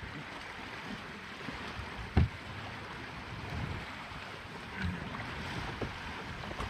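Water rushing and splashing along the hull of a Schock 23 sailboat under way in choppy water, as a steady wash of noise. A single loud thump comes about two seconds in, with a few fainter knocks later.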